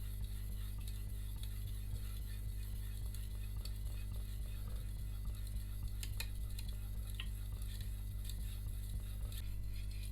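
Shun VG10 Chinese cleaver's blade being stroked back and forth on a wet whetstone, a rhythmic scraping with a few sharper clicks about six seconds in. A steady low hum runs underneath.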